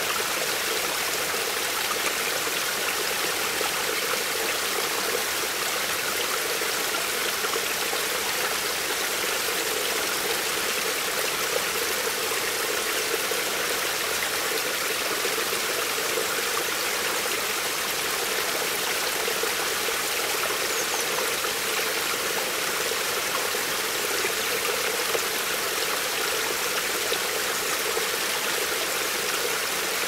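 Small mountain stream, shallow water flowing steadily over stones: an even, hissy rushing with little low rumble.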